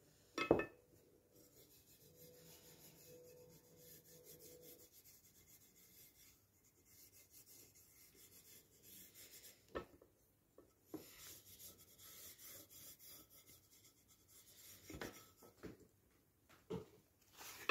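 Fingers rubbing paprika into the embossed surface of a wooden spoon on a ceramic plate: a faint, soft rubbing. A sharp knock comes about half a second in, with smaller knocks near the middle and toward the end.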